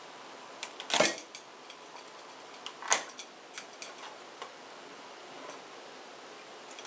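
Crab shell crunching and clicking as a pointed steel rod is forced through it at the mouth, with two sharp cracks about one and three seconds in and fainter clicks between.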